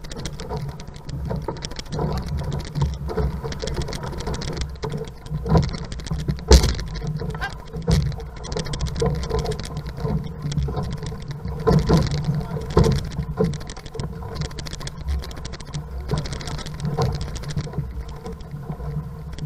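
Water splashing and rushing past a six-man outrigger canoe as the crew paddles hard, with a low rumble throughout and irregular sharp splashes and knocks from the paddle strokes, the loudest about six and a half seconds in.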